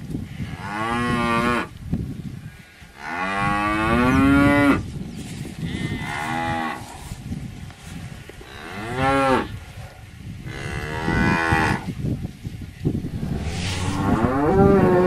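Cattle mooing repeatedly: about six moos in turn, each one to two seconds long, several rising and then falling in pitch. A steady low rumble runs underneath.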